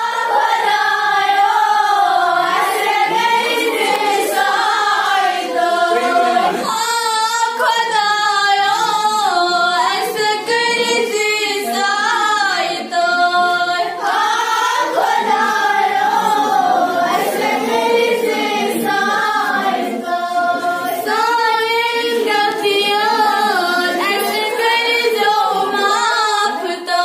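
Two schoolgirls singing a song together into a microphone, unaccompanied, in long wavering notes.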